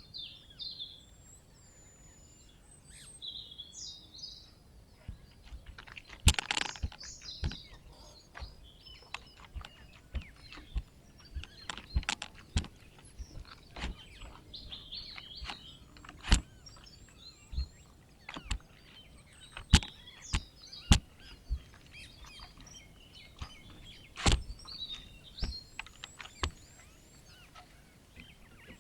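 Small birds chirping and twittering, with sharp clicks and knocks scattered irregularly throughout and a short noisy burst about six seconds in.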